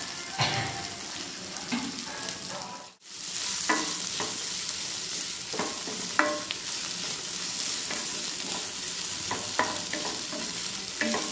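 Chopped raw green tomato and grated coconut sizzling in a non-stick kadai as a wooden spatula stirs and scrapes it around, with a few short knocks of the spatula on the pan. The sound drops out briefly about three seconds in.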